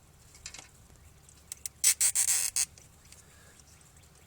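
A plastic zip tie being pulled tight through its ratchet: a couple of sharp clicks, then a loud rasping zip lasting under a second, about two seconds in.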